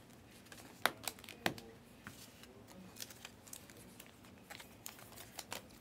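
Stack of trading cards being handled and flipped through one by one: faint, irregular clicks and light rustling as card edges slide against each other.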